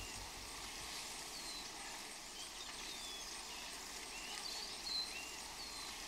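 Forest ambience: a steady, faint rushing background with birds giving several short, high chirps spread through it.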